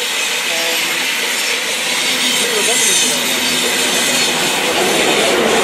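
ICE high-speed train passing at speed: a steady rush of wheels on rails and air, growing slightly louder.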